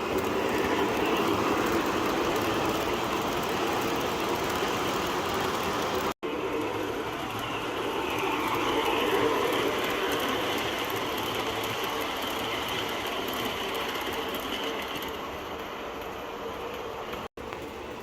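MTH O-scale R-40 Slant model subway train running on three-rail track, its onboard sound system playing subway car running sounds with a steady hum; it swells about halfway through and eases off later, with two very short dropouts.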